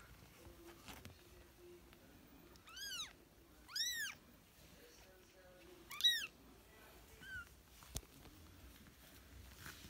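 Young kitten meowing: three high, arching mews about a second apart, each rising then falling in pitch, then a fainter short mew. A single sharp click comes shortly after.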